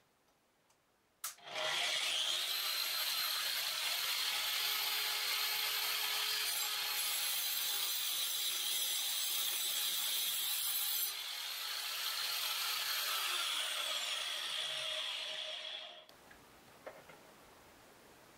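Corded angle grinder fitted with a 125 mm 40-tooth saw blade, switched on with a click just over a second in and quickly up to speed, running with a steady high whine. For a few seconds in the middle the blade saws through wood. Near the end it is switched off, and the whine falls away as the blade coasts to a stop.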